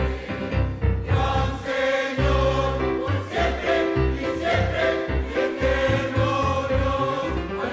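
Mixed choir of men and women singing a Spanish-language hymn in full voice, over held low notes of an instrumental accompaniment.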